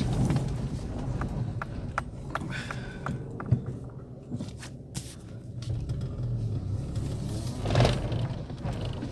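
Inside a moving Lada Priora (VAZ 2170) on a gravel road: a steady low rumble of engine and tyres, with scattered sharp ticks of stones and one louder whoosh near the end.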